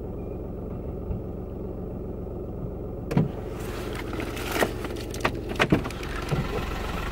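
Car engine idling, heard from inside the cabin. From about three seconds in come several knocks and clunks, with rustling, as someone gets into the car.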